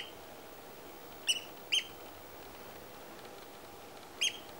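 A bird calling: four short, sharp, high calls, a pair close together about a second in and another near the end, over a faint steady background hiss.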